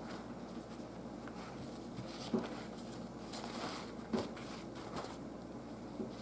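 Faint rustling of a paper towel being handled along with a soft plastic swimbait, with a few light taps and ticks.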